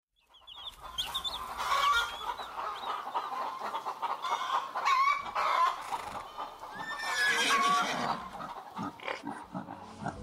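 Farmyard animals calling, mainly chickens clucking, in louder bouts every two to three seconds.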